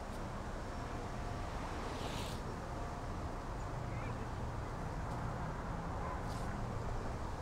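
Steady low background rumble of a city street, with a brief soft hiss about two seconds in and again about six seconds in.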